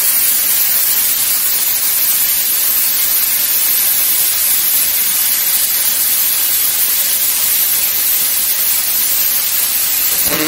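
Air plasma cutter cutting through a steel plate with its pilot arc on: the loud, steady hiss of the compressed-air plasma arc, which stops abruptly at the end.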